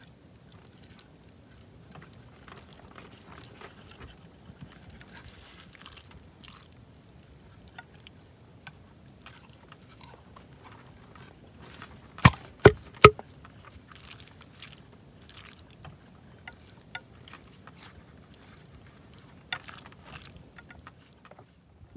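Hands stuffing wet marinated pork and onion mixture into a green bamboo tube: soft, irregular squelching and rustling. About halfway through come three sharp knocks in quick succession.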